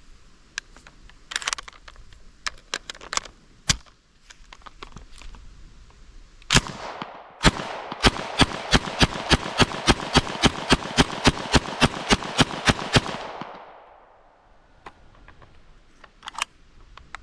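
Thompson M1928A1 submachine gun, converted to semi-automatic .45 ACP, fired as fast as the trigger can be pulled. Two single shots come first, then a rapid string of about twenty shots at roughly four a second, with echo ringing between them that dies away about a second after the last shot. Fainter scattered clicks and pops come before and after.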